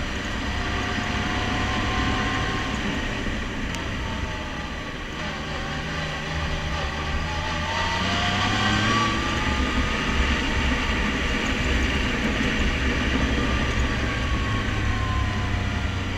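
Side-by-side UTV's engine and drivetrain running while driving along a dirt trail, heard from the driver's seat. A steady low drone carries a whine that rises in pitch around the middle and slowly falls near the end as the engine speeds up and eases off.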